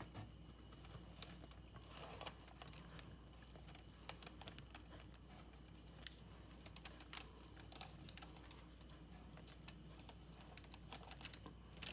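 Faint, scattered clicks and scrapes of a spoon working stiff fudge into a paper-lined pan, with light crinkling of the lining paper.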